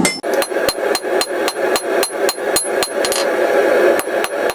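3-pound cross-peen hammer striking hot 3/8-inch round steel bar on an anvil, a steady run of about four to five blows a second with a short metallic ring after each, setting an offset in the bar.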